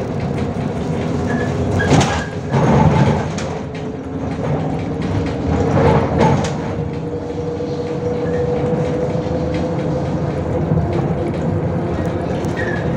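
Interior running noise of a MAZ 105 articulated city bus under way: a steady diesel drone with a held whine, and louder rattling knocks from the body about two and six seconds in.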